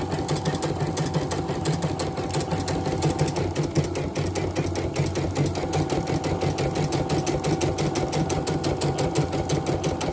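CNY computerized embroidery machine stitching a test design, its needle bar running in a rapid, even rhythm of stitches. The repairer says its X and Y motors have a little play, so the hoop lags slightly between moves.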